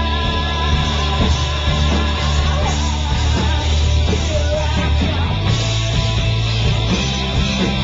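Live rock band playing loud and without a break: electric guitars over drums.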